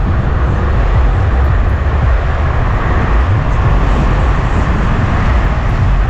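Car driving along a road, heard from inside the cabin: steady engine and tyre noise with a deep, unsteady rumble.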